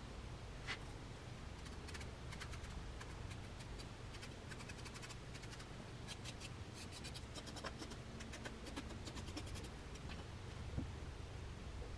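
Faint, rapid scratching of a hand tool on clay, in clusters of quick strokes, with a sharper tick near the end.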